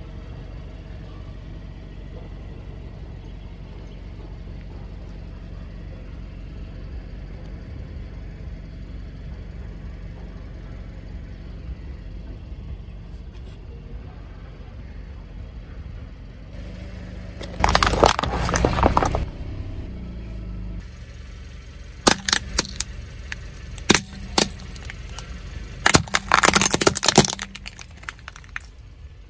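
A car's engine runs with a steady low hum as the car creeps forward. Then its tyre crushes hard objects: a loud burst of crackling a little past halfway, a string of sharp single cracks, and dense crackling near the end.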